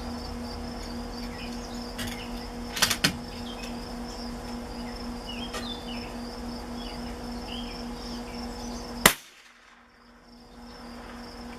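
A single shot from a Savage Mark II .22 LR rifle about nine seconds in, a round the shooter calls subsonic. A couple of sharp clicks come about three seconds in. Steady insect buzzing runs underneath.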